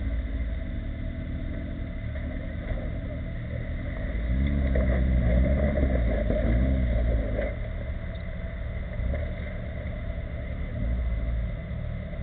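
Off-road 4x4's engine running at a low, steady drone, revved harder for about three seconds in the middle with its pitch rising and falling, then settling back.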